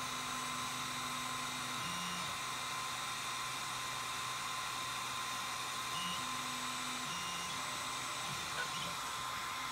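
CNC diode laser engraver running: its stepper motors hum, jumping to a new pitch every second or few as the laser head changes moves. Underneath is a steady fan hiss and a thin high whine, as the laser burns paint off a copper-clad board.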